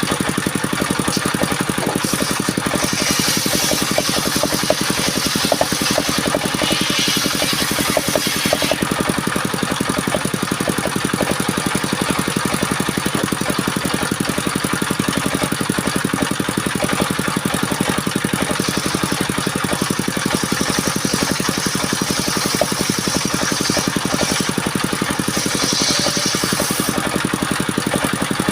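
Engine-driven circular saw machine running steadily. Twice, from about three seconds in and again past the middle, a harsher high hiss joins in for several seconds as the blade cuts through sengon (albizia) wood.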